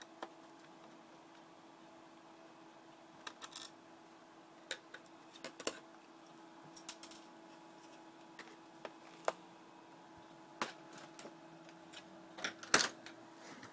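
Irregular small clicks and taps of laptop internals being handled as the graphics card module is taken out, with a loud cluster of clicks near the end, over a faint steady hum.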